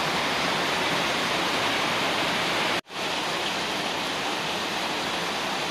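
Rain falling steadily, an even hiss. It cuts out for an instant about three seconds in, then carries on a little quieter.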